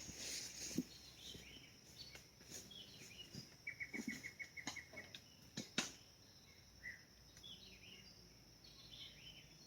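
Faint birdsong of scattered high chirps, with a quick trill of about nine even notes near the middle. A few sharp clicks or snaps break in, two of them close together about six seconds in.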